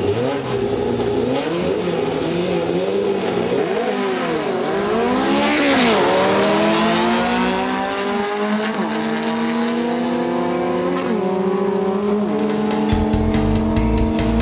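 Two air-cooled VW Beetle flat-four engines revving hard as they launch and run through the gears. One sweeps past about six seconds in, its pitch dropping as it goes by.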